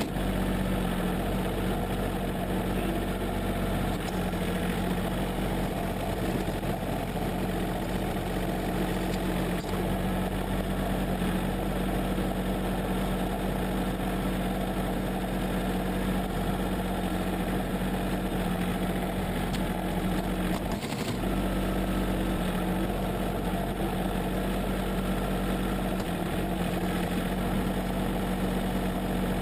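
John Deere 770 compact tractor's three-cylinder diesel engine running steadily while the tractor works its front-end loader, pushing and carrying snow in the bucket.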